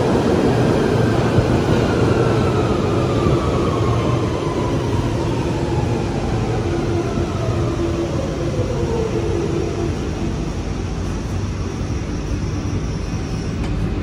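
London Underground 1992 Stock Central line train braking into an underground platform. Its wheels rumble on the rails under a pair of motor whines that fall steadily in pitch over about nine seconds as it slows.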